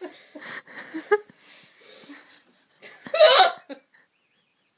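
A woman's loud hiccups: several short hiccups in the first second or so, and the loudest one about three seconds in.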